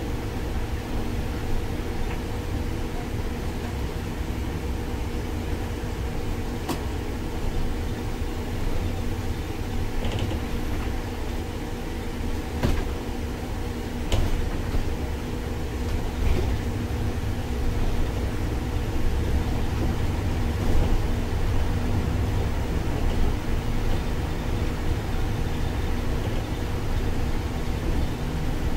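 MAN Lion's City articulated bus with a biogas engine driving along, heard from inside the cabin: a steady low rumble of engine and road noise with a steady hum. A few sharp cabin rattles stand out over it.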